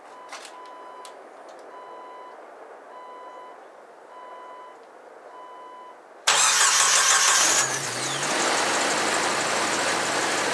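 A dashboard warning chime beeps about once a second, five times. About six seconds in, the starter cranks the 1998 Jeep Wrangler TJ's 2.5-litre four-cylinder for about a second. The engine catches on this test start after the new throttle position sensor was fitted, and settles into a steady idle.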